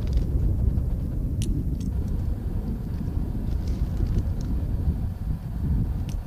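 Low, uneven rumble of an Air Tractor AT-802 Fire Boss's PT6A turboprop engine heard from the ground as the floatplane comes in on approach to land.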